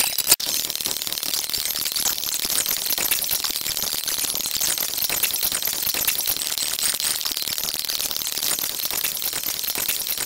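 Dense, continuous crackling made of rapid tiny clicks, hissy and bright, with a short dropout just after the start; it fades away at the end.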